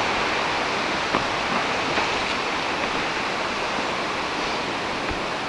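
Steady rushing of a waterfall and the river below it, an even roar of falling water.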